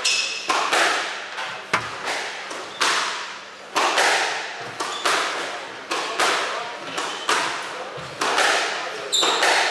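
Squash rally: sharp smacks of rackets hitting the ball and the ball striking the court walls, about two a second, each ringing off the hard walls. A few short high squeaks near the end, typical of court shoes on the wooden floor.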